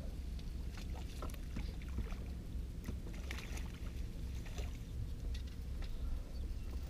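Steady low rumble with scattered small clicks and knocks of fishing gear being handled on a small boat's deck while a fish is reeled in.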